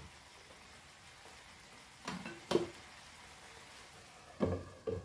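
Faint steady sizzle of prawns frying in a non-stick pan, with a couple of light knocks about two seconds in and a glass lid knocking onto the pan near the end.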